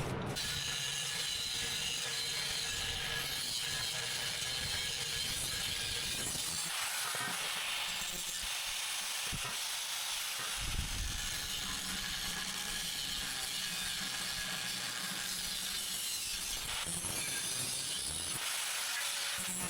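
A tool cutting through a metal hinge piece: a steady, unbroken mechanical cutting noise.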